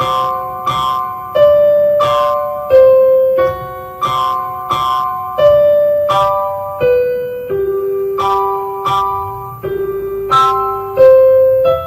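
A simple, lilting instrumental tune on a piano-like keyboard. Single struck notes come about three every two seconds, each fading away before the next.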